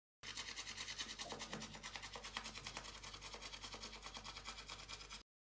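Faint, quick rhythmic scrubbing of a toothbrush brushing teeth, several strokes a second, starting a moment in and stopping just before the end.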